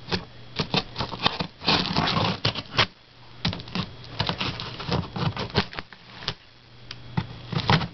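Scissors cutting through packing tape on a cardboard shipping box: an irregular run of sharp snips and short scrapes, with the cardboard rustling as the box is handled.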